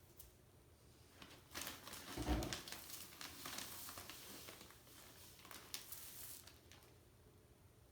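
Sand being poured out of a plastic bag into the box: the bag crinkling and the sand hissing as it slides, with a dull thump a little over two seconds in.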